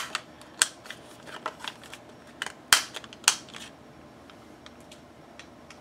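Paper and card being handled on a craft table: several sharp clicks and taps, four louder ones in the first three and a half seconds and fainter ones between, then little sound.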